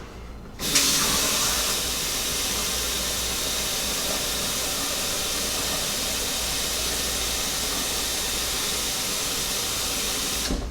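Water running steadily from a tap into an espresso machine's water tank. It starts abruptly about half a second in and cuts off just before the end.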